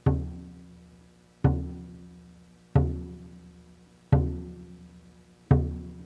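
A large upright drum is struck in a slow, steady beat, one single stroke about every second and a half, five strokes in all. Each stroke is a deep, low tone that rings out and fades before the next.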